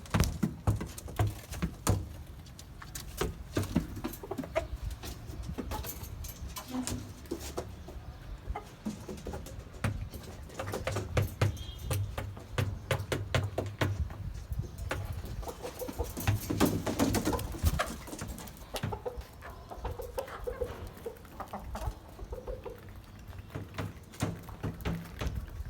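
Domestic hens clucking softly now and then, with frequent sharp taps and knocks throughout.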